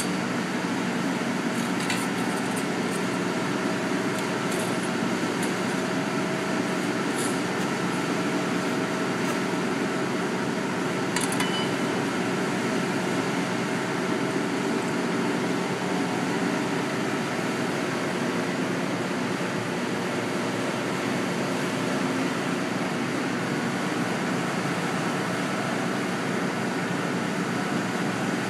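Steady hum of a running fan or ventilation machine, with a few faint clicks about two seconds in and again near the middle.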